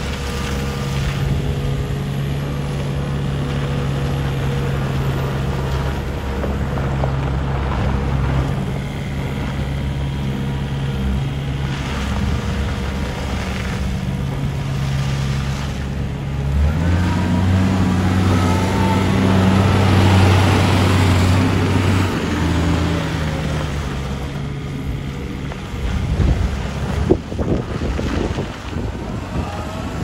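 Komatsu SK820 skid-steer loader's diesel engine running steadily as the machine drives. About halfway through, the engine note rises and stays higher and louder for several seconds, then drops back. A few knocks come near the end.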